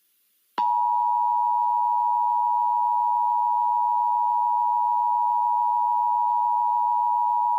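Emergency Alert System attention signal: a steady electronic tone near 1 kHz that starts about half a second in and holds unbroken at one pitch, announcing a warning broadcast.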